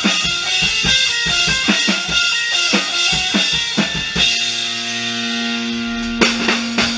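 Drum kit and guitar playing rock music together. About four seconds in the drums drop out under a held guitar chord, and about two seconds later a loud hit brings the drums back in.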